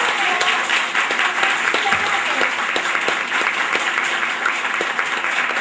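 Audience applauding steadily, with voices mixed in.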